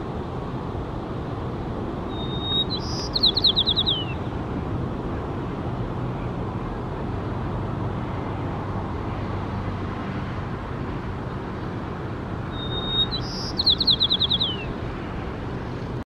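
White-crowned sparrow singing twice, about ten seconds apart. Each song is a clear whistle followed by a quick run of about half a dozen falling trilled notes, over a steady background rush.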